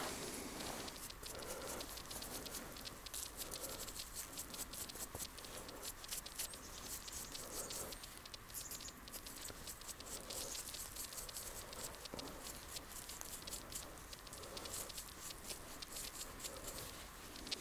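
Footsteps crunching through snow, about one step a second, with a fine crackle of snow between steps.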